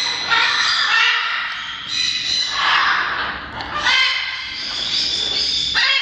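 Parrots squawking loudly, about three long calls in a row.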